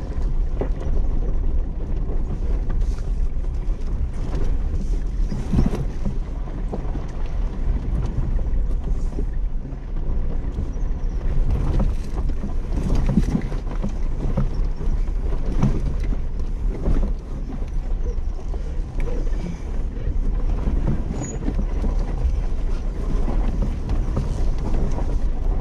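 Jeep driving slowly over a rough, rocky dirt trail, heard from inside the cab: a steady low engine and tyre rumble with scattered knocks and rattles as it rolls over the uneven ground.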